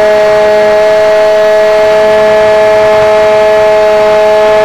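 Multiplex Shark RC airplane's motor and propeller heard from its onboard camera in flight: a loud, steady whine at an unchanging pitch, with two strong tones, over a rush of airflow noise.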